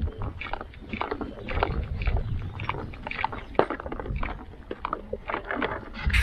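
Kayak and its mounted fishing rods rattling and knocking in quick, irregular clicks as it is hauled across sand, over a constant low rumble on the microphone.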